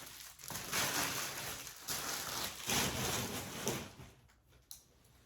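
Spray hissing in several long bursts, then stopping about four seconds in.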